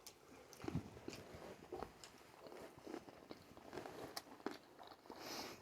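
Faint chewing and biting sounds of someone eating sushi, with scattered short irregular mouth clicks.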